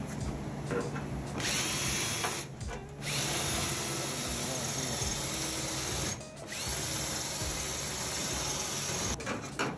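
Cordless drill boring out the spot welds along a rusty steel floor-pan seam, running in three stretches with two short pauses between them.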